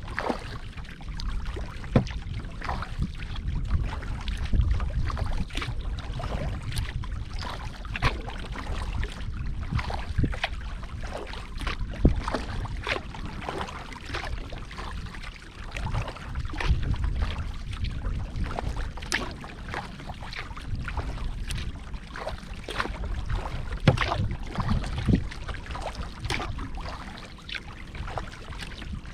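Kayak out on the water: irregular sharp taps and small splashes over a low wind rumble on the microphone, with a few louder knocks.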